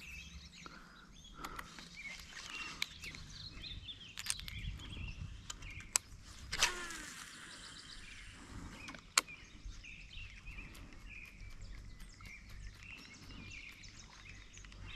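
Quiet outdoor lakeside ambience with faint scattered birdsong and a low steady rumble, broken by a few sharp clicks, the loudest about six and a half and nine seconds in.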